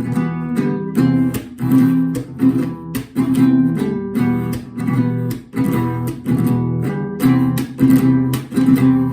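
Acoustic guitar strummed in a steady rhythm, alternating between E minor and C chords, in a down, muted chuck, down, up strum pattern, the chucks sounding as sharp percussive clicks.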